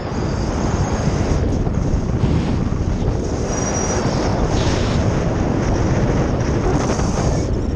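Steady rushing wind buffeting the microphone of a skydiver's camera during a descent under an open parachute canopy.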